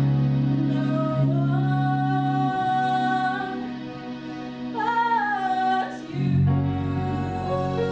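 Stage-musical ballad: a female voice sings long held notes over sustained backing chords. The voice slides up into a long high note about a second in, sings a shorter phrase near the five-second mark, then stops, leaving the chords sounding.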